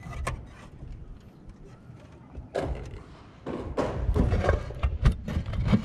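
Handling noise on the drone's GoPro as it is picked up off the roof: scattered knocks, scrapes and rustles, busier and louder from about two and a half seconds in.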